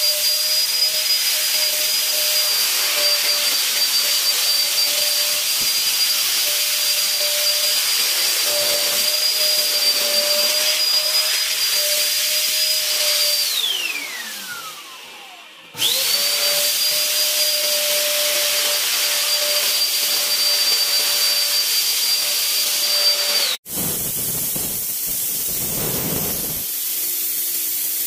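Mosquito fogging machine running with a steady hiss and a high whine. About 13 seconds in, its pitch slides down and it fades as it winds down, then it starts again abruptly about two seconds later. After a sudden break near the end, a quieter rushing hiss of fog spraying follows.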